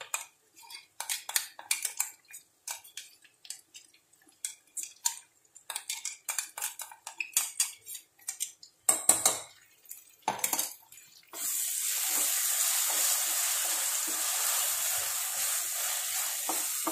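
Wooden spatula scraping and knocking ground masala paste out of its container and into a non-stick pan, a quick run of short scrapes and taps. About eleven seconds in, a steady sizzle starts suddenly as the paste fries in the oil and is stirred.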